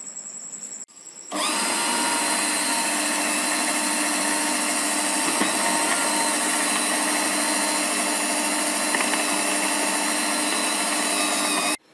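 Electric countertop blender motor running at a steady speed, whirring through a thick mango, milk and cream kulfi mixture. It starts about a second in and cuts off just before the end.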